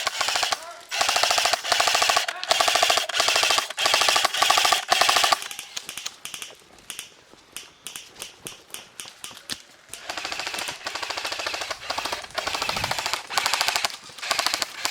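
Airsoft guns firing rapid full-auto bursts. There are four long bursts in the first five seconds, then a few seconds of scattered, fainter shots, then more bursts from about ten seconds in.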